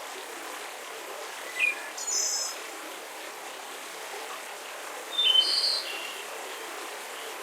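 Birds chirping over a steady outdoor background hiss: short high calls about one and a half and two seconds in, and a louder cluster of chirps about five seconds in.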